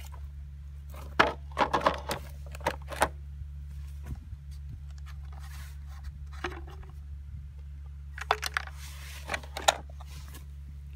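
Knocks and clatter of a Stihl MS170C chainsaw's plastic body being handled and set down on concrete. The sharp knocks come in two clusters, one between about one and three seconds in and one near the end, over a steady low hum.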